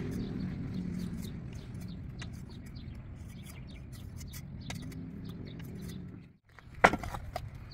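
A low, steady motor hum with scattered light clicks fades slowly and then cuts off abruptly. About half a second later a blade strikes a coconut once with a sharp chop, followed by a few lighter knocks.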